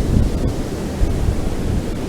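Ocean surf washing onto a beach: a steady, low rushing noise with no distinct breaks.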